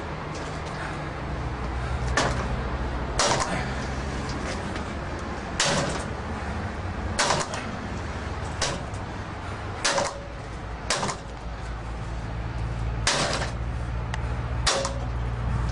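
A steel pry bar levering and knocking against a steel expanding security gate at its lock: repeated sharp metal clanks and scrapes, one every one to two seconds, a few ringing briefly. It is a forced-entry attempt on the gate.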